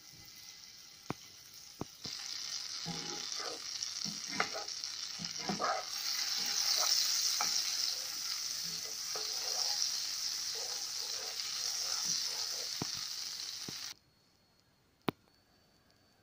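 Butter sizzling as it melts and foams in a hot non-stick frying pan, the sizzle growing louder a couple of seconds in, while a spatula scrapes and taps across the pan pushing the butter around. The sizzle cuts off suddenly near the end.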